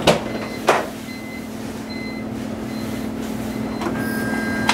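Two clicks near the start, then a steady electric hum that slowly grows louder, with a thin high whine starting near the end: the car's electric fuel pump switched on with the key to pressurize the fuel rail.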